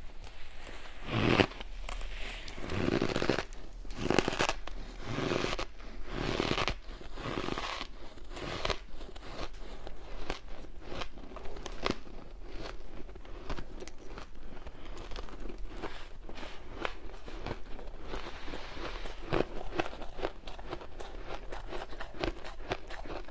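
Shaved ice crunching as it is bitten and chewed by hand-held mouthfuls, in several loud bursts over roughly the first eight seconds. After that comes a steady run of small crackles and crunches as hands press into and scoop up the loose shaved ice.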